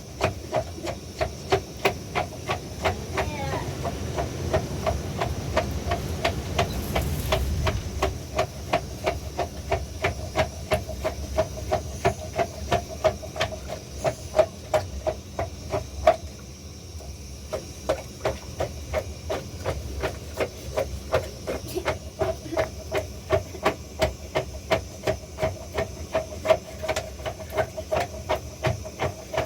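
Steady rhythmic knocking, about three strokes a second, each stroke with a short ringing tone; it stops briefly a little past halfway, then resumes.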